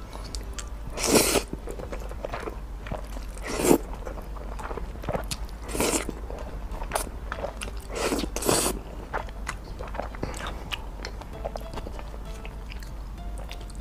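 Close-miked eating of stir-fried noodles with egg: several loud slurps of noodles, a few seconds apart, with soft wet chewing clicks in between.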